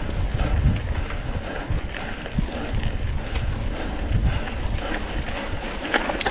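Mountain bike rolling fast over a rough gravel dirt track, with wind buffeting the microphone, a steady low rumble and scattered rattles and clicks from the bike. A sharp click near the end.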